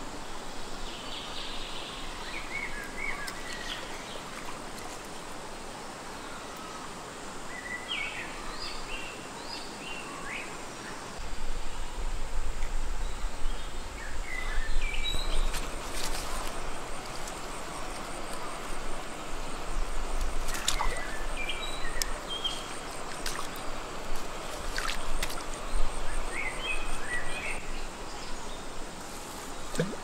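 Forest ambience: birds chirping every few seconds over a steady high insect drone. A low rumble joins about eleven seconds in, and a few sharp clicks sound in the second half.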